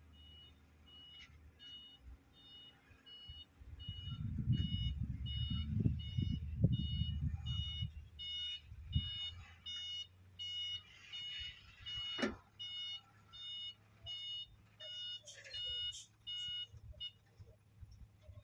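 Reversing alarm on a heavy site vehicle, a steady high beep repeating a little more than once a second, which stops about a second before the end. A loud low rumble rises about 4 s in and dies away by about 8 s, and a single sharp knock sounds about 12 s in.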